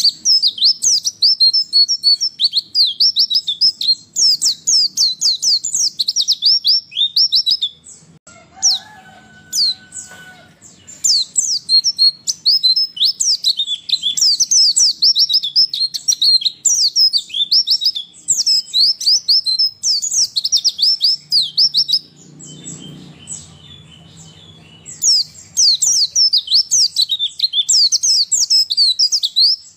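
White-eye (pleci) singing a rapid, high twittering song in long runs, broken by two pauses of a few seconds, about eight and twenty-two seconds in. It is given as a female's song, used to spur male white-eyes to answer and sing.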